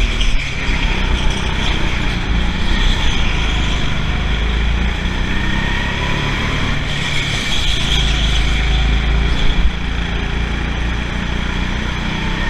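Go-kart running flat out around an indoor track, heard from on board: a steady loud drive noise with a pitch that rises and falls as it speeds up and slows for corners.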